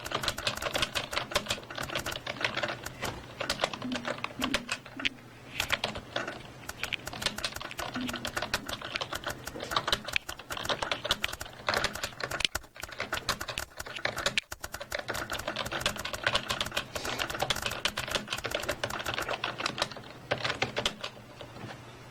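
Fast, steady touch-typing on a computer keyboard: rapid irregular key clicks with heavier thumps of the space bar, during a timed typing speed test at about 59 words per minute. The typing thins out and stops near the end.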